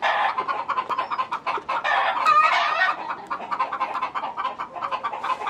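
Chickens clucking, many short calls one after another, with a louder call a little over two seconds in.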